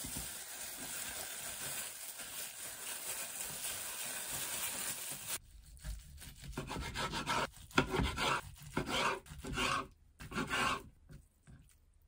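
Plastic-gloved hands pressing and spreading seasoned rice over a sheet of gim make a steady rustle. About halfway through, a kitchen knife saws through a rolled gimbap on a wooden cutting board in several separate rasping strokes.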